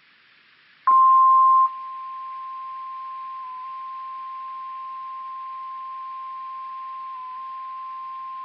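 NOAA Weather Radio 1050 Hz warning alarm tone: one steady, single-pitched tone that starts about a second in, loud for under a second and then holding at a lower level. It signals that a severe weather warning message is about to be broadcast.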